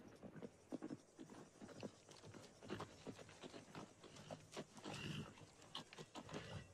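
Faint sounds of livestock: hooves knocking irregularly on the ground, with an animal's call about five seconds in.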